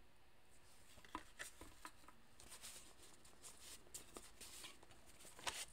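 Near silence broken by faint, scattered rustles and light clicks of tarot cards being handled and laid down.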